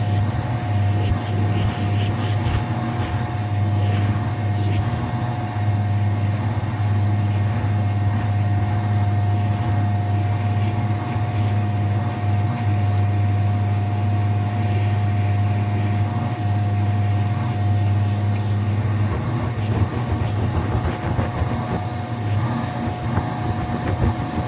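Vacuum cleaner running over shag carpet: a steady motor hum with a thin high whine, the low hum turning uneven in the last few seconds.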